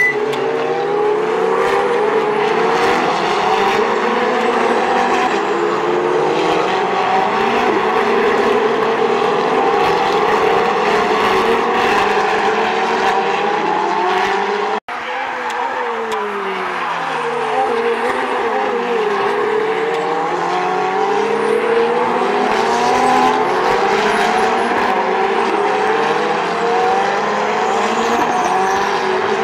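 Several Ferrari 488 and 458 Challenge race cars with V8 engines passing in a pack, their overlapping engine notes rising and falling as they rev and shift through the gears. The sound cuts out for an instant about halfway through.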